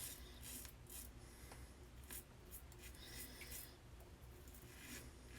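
Faint scratchy strokes of a Rockwell 2C safety razor scraping stubble off the face, several short irregular strokes.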